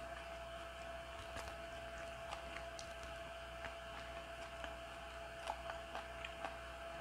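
Quiet room tone with a thin steady hum and a few faint, scattered soft clicks.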